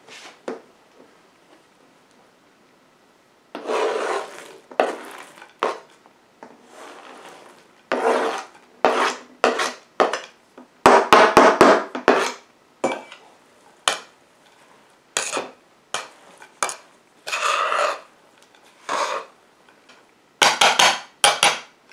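A knife blade scraping chopped nuts and dried fruit off a plastic cutting board into a ceramic mixing bowl, then scraping and stirring through the flour in the bowl: irregular scraping strokes that start a few seconds in, with a quick run of short strokes near the end.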